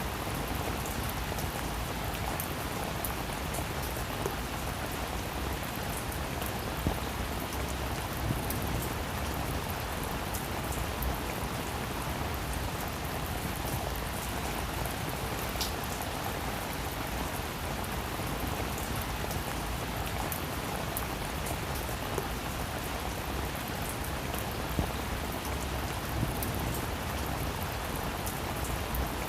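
Steady rain falling on a roof, a dense even patter with scattered louder drop ticks.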